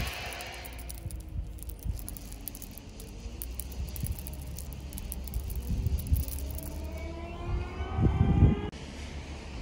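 An unseen motor vehicle's engine rising steadily in pitch as it speeds up, getting louder toward the end and cutting off suddenly, over a steady low wind rumble on the microphone. A short rattle of gravel pebbles falling from a hand comes right at the start.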